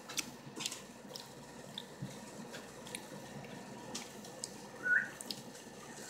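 Faint, scattered small clicks and wet ticks in a quiet room, with one short high squeak about five seconds in.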